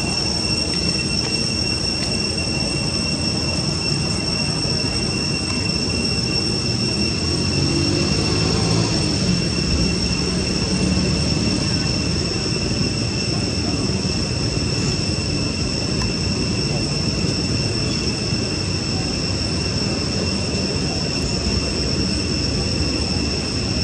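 Steady high-pitched insect drone, such as cicadas, holding one unchanging tone without a break, over a constant low rumble of background noise.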